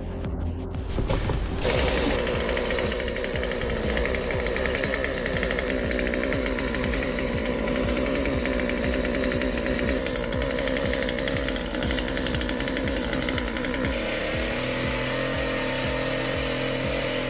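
Chainsaw running and cutting, its engine note wavering up and down with the load, with a dense rattling texture. There is a slight change in tone about fourteen seconds in.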